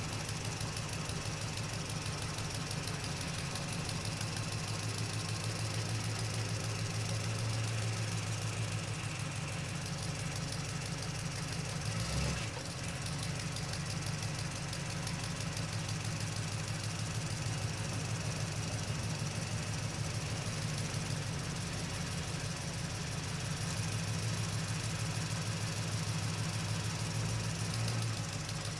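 Radio-controlled toy excavator running with a steady, rattling hum, with one brief knock about twelve seconds in.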